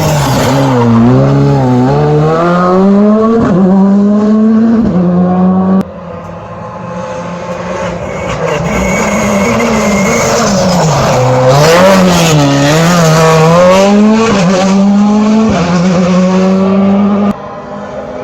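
Rally car engines taking a hairpin: the revs fall and rise several times as each car brakes, turns and accelerates away. The sound breaks off abruptly about six seconds in and again near the end, where one car's sound gives way to the next.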